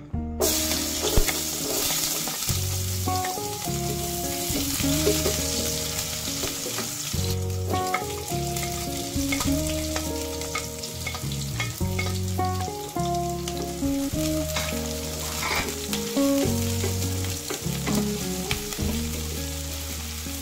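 Chopped onion and garlic sizzling as they fry in hot oil in a nonstick pan. The sizzle starts suddenly as they hit the oil about half a second in, with the clicks and scrapes of a wooden spatula stirring them.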